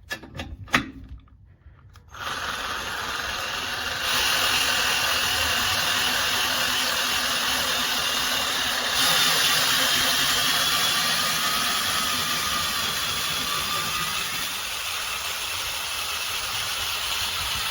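Power drill running steadily, driving a scissor jack's screw to lower a car. It starts about two seconds in, gets louder twice, and cuts off sharply at the end.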